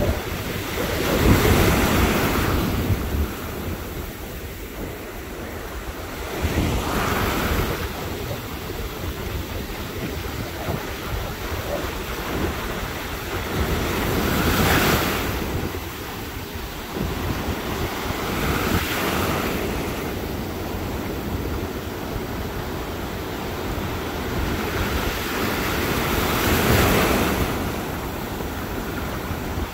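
Ocean surf breaking in the shallows, a steady wash of foam with waves crashing louder about every four to eight seconds, and wind buffeting the microphone.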